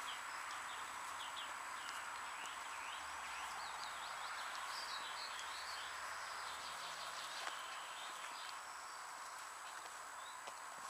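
Steady outdoor background hiss, with many short high chirps of small birds, thickest in the first half.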